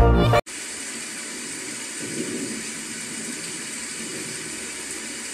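Electronic background music cuts off abruptly about half a second in, giving way to a steady hissing noise like rushing water or air.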